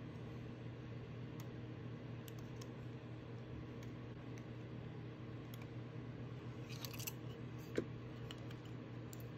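Faint clicks and taps of a plastic nail swatch wheel being handled over a steady low hum, with one sharper tap near the end.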